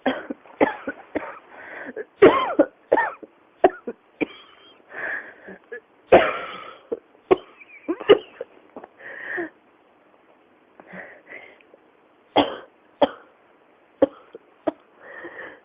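A person coughing again and again in an unstoppable coughing fit. The coughs come in quick clusters of short bursts, with a brief lull about two thirds of the way through.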